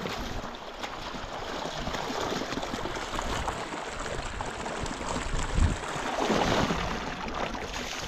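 A mountain river rushing over rocks: a steady hiss of running water, with uneven low rumbles underneath.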